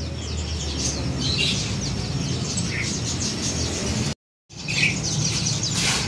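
Many small caged songbirds chirping and twittering together over a steady low background rumble. The sound cuts out completely for a moment about four seconds in, then resumes.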